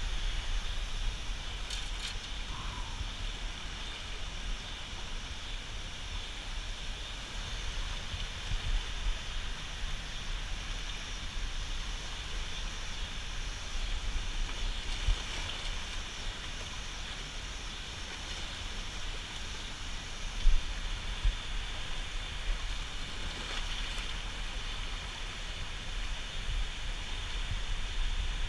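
Steady rush of water below the dam, with wind on the microphone rumbling underneath; one short knock about two-thirds of the way in.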